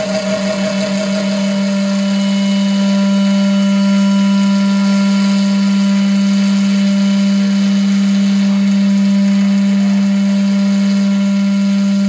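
Live harsh-noise drone played loud through a theater sound system: one steady low tone under a hiss, with fainter higher tones held above it.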